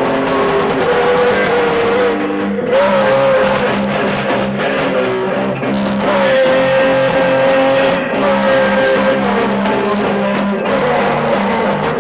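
A Christmas carol played live by a small band: guitar chords in a steady rhythm under a held melody line that bends between notes.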